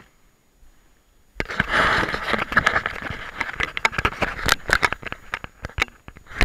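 Close handling noise on the camera: fingers rubbing and scraping against it right at the microphone, starting suddenly about a second and a half in, with a rapid run of sharp clicks and crackles.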